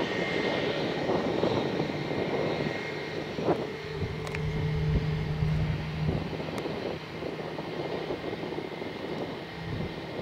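Airbus A321's IAE V2500 jet engines at low thrust as the airliner taxis after landing: a steady rushing hiss with a thin whine running through it.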